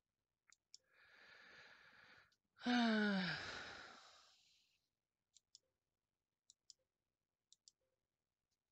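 A woman draws a breath and lets out a long, audible sigh that falls in pitch as it fades: impatience while the connection dialog fails to find the server. Then come three pairs of light computer-mouse clicks about a second apart.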